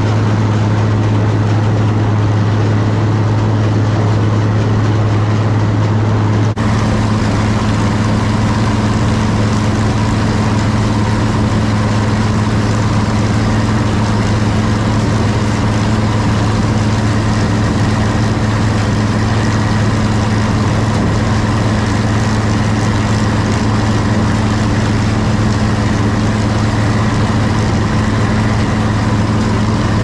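New Idea Uni Harvester corn picker running steadily in the field: a loud, even engine and machinery drone. The drone shifts slightly in character about six and a half seconds in.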